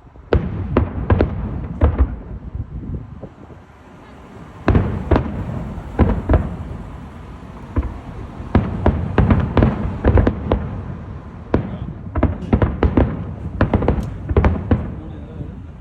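Fireworks going off: rapid runs of sharp bangs and crackles in several volleys, with a low rumble between them.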